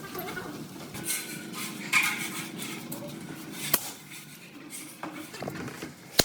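Scattered clinks and knocks over a busy background, the sharpest about two seconds in, again just before four seconds, and near the end.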